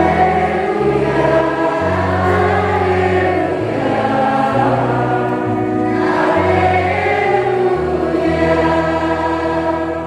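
A girl singing a sacred song into a microphone, with children's choir voices and held keyboard notes underneath that change about every second.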